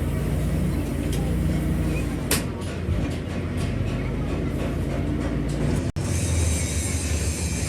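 Heavy vehicle engine running steadily with a low hum, with a sharp click a little over two seconds in and a brief break in the sound just before six seconds.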